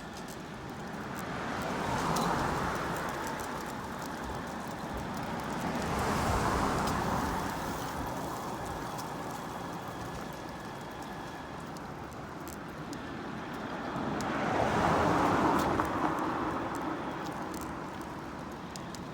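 Three vehicles passing by one after another, each a whoosh that swells and fades over a few seconds, about two, six and fifteen seconds in, over steady low wind rumble on the microphone.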